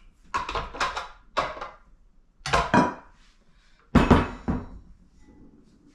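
A kitchen utensil scraping and knocking against a mixing bowl and baking dish as thick peanut butter bar dough is scooped out, a series of separate clunks and scrapes with the loudest knock about four seconds in.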